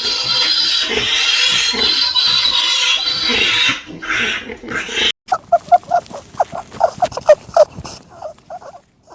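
Pigs: a loud, dense din of squealing for about four seconds, then after a sudden break a run of short, quick grunts, several a second.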